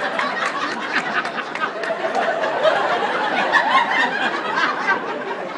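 Audience laughing and chattering: many voices overlapping in a steady crowd noise.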